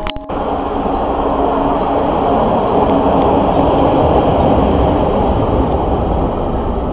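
Passenger train in motion: steady, loud running noise with a faint steady hum underneath, heard just after a brief break.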